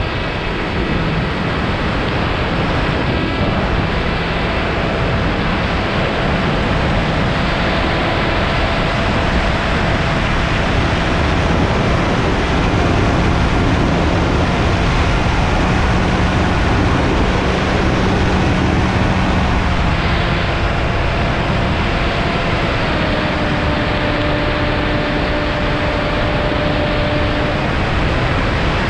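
Loud, steady wind rush over an airborne camera, with the faint steady hum of a model aircraft's motor underneath. The motor's pitch shifts twice in the last third.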